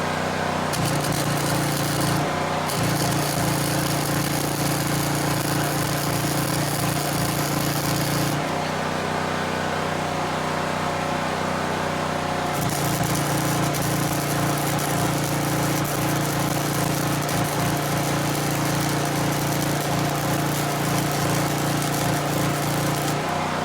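Generator engine running steadily while an electric welding arc crackles in two long runs of several seconds each, with a short break in the first; the engine note firms up while the arc is burning.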